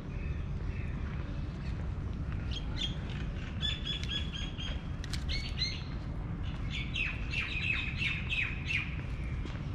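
Small birds chirping in several runs of quick, repeated high notes, the longest run near the end, over a steady low rumble.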